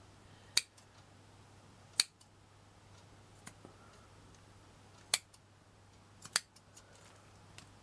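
Scissors snipping through the threads of a crochet doily: a handful of sharp, separate snips a second or more apart, the last two close together.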